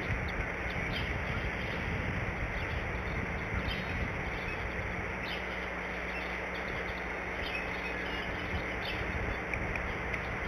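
Steady outdoor hiss with short, high chirps of small songbirds repeating irregularly, about once a second.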